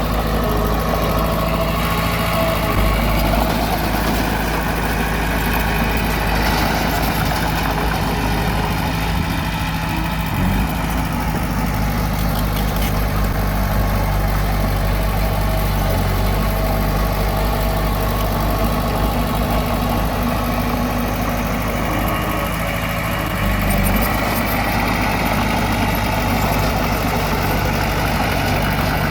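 A bulldozer's diesel engine running steadily with an even low drone.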